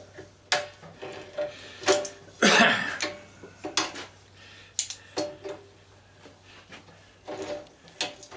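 A string of separate metallic clinks and knocks, several with a short ring after them, from tools and parts of an old belt/disc sander being handled and worked on. A longer scraping sound comes about two and a half seconds in.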